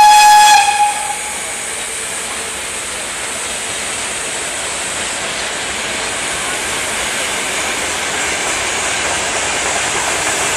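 Two-section VL10 electric locomotive passing on the adjacent track. A short, loud single-note horn blast sounds at the start, then the steady rush and rattle of wheels on rail, growing slightly louder toward the end.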